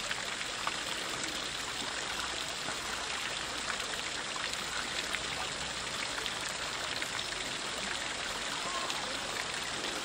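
Water from the Fontana del Pantheon's spouts splashing steadily into its marble basin: an even, unbroken rush of falling water.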